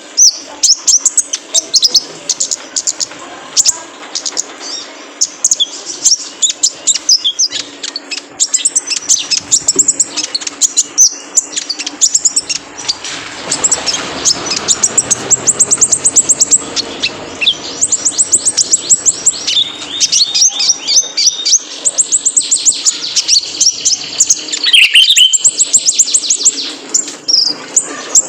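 Male kolibri ninja sunbird singing loud, fast, high-pitched chirping song, with rapid trilled runs of notes that come in quick bursts throughout.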